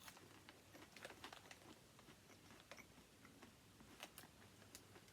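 Faint crunching of popcorn being chewed: irregular small crunches throughout.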